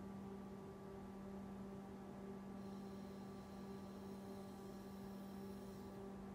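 Haas SL30 CNC lathe standing powered with a steady electrical hum. From about two and a half seconds in, a faint high whine joins while the tool turret travels toward the spindle, stopping about six seconds in.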